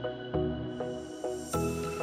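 Electronic background music: a melody of short notes, about four a second, over a steady pulse.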